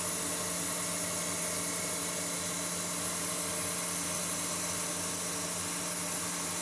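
A machine tool's electric motor running steadily: a constant hum with a few fixed tones under a strong, even hiss.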